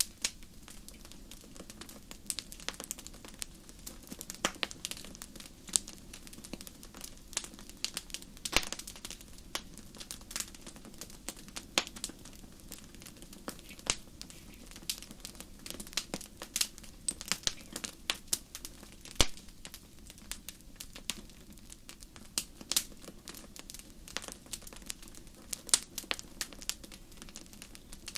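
Wood fire crackling: irregular sharp pops and snaps over a steady low rushing of the flames.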